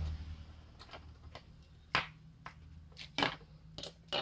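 Scattered sharp clicks and knocks of small plastic radio parts being handled on a workbench, the loudest about two and three seconds in and a few more near the end, over a low steady hum.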